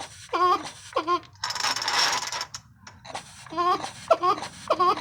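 Craftsman 3.7 chainsaw being pulled over on its starter cord, making a weird, goofy squeaking: short rising chirps in quick pairs and threes, with a longer rushing hiss about a second and a half in.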